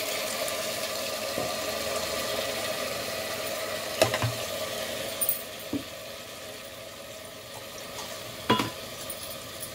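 Raw mutton sizzling in hot oil with onions in a pressure cooker as it is stirred with a wooden spatula. The spatula knocks sharply against the pot about four seconds in and again near the end, and the sizzle eases off in the second half.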